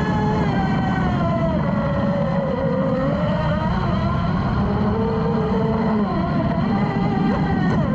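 Brushless RC racing boat heard from on board: its electric motor's whine falls in pitch as the boat slows through a turn, then rises again as it speeds back up, over a steady rush of water and spray against the hull.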